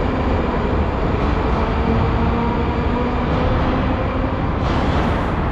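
Metro train running out of the station, a steady loud rumble with a faint whine. A short hiss about four and a half seconds in.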